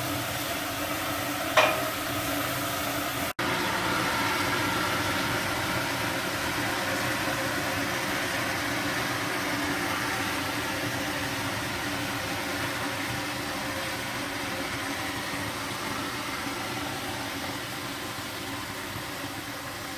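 Steam hissing steadily out of the steam outlet of a Zhar Gorynych closed-heater banya stove, its water tap opened full, easing off slowly toward the end. There is one short sharp knock about one and a half seconds in.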